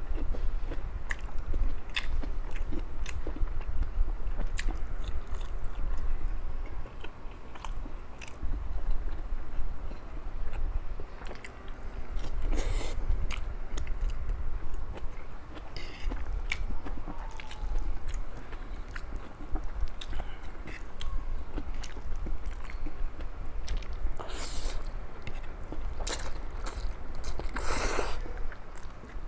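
Close-up eating sounds: chewing and biting with many short, sharp crunchy clicks, and a few longer noisy bursts about halfway through and near the end.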